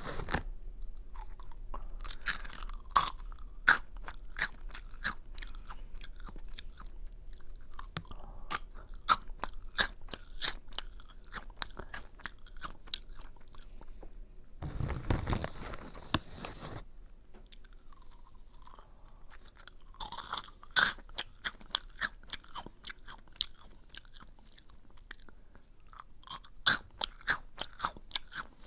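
Close-miked chewing of Aji Curry, a crunchy curry-flavoured snack, with many sharp crunches in irregular bursts. A short rush of noise comes about halfway through.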